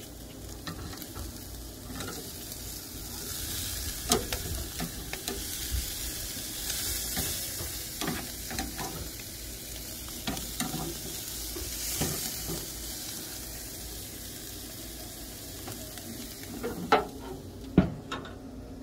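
T-bone steaks sizzling steadily on a charcoal grill grate, with light clicks of metal tongs against the grate. Near the end, two loud metal knocks about a second apart as the barrel grill's lid is shut.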